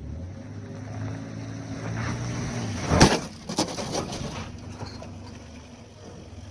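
A motor or engine running steadily, with one loud knock about three seconds in and a few smaller knocks over the next second.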